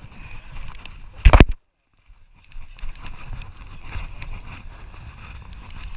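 Wind buffeting the microphone over steady boat noise, with a loud clattering knock of handling about a second in, after which the sound cuts out completely for under a second before the wind and boat noise return.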